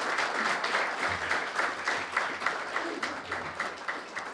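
Audience applauding, thinning near the end into scattered separate claps.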